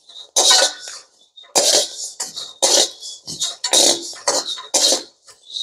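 Perforated metal spatula stirring whole wheat grains as they dry-roast in a metal karahi: grains and metal scraping and rattling across the pan in about eight quick strokes, one after another.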